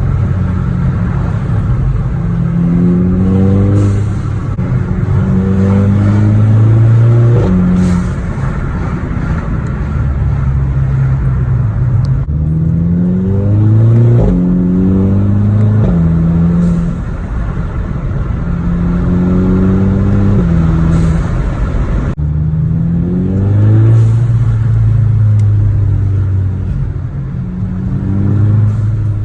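Volkswagen Mk6 GTI's turbocharged 2.0-litre four-cylinder engine with an open downpipe (no exhaust past the turbo), loud and accelerating through the gears. The revs climb and drop at each upshift, over several runs in a row.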